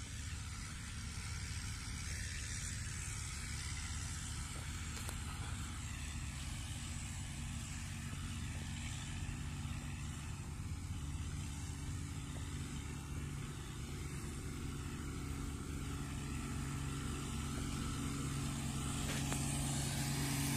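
Diesel engine of a Tata tipper truck running as it approaches on soft earth, labouring, with a steady low rumble that grows louder near the end.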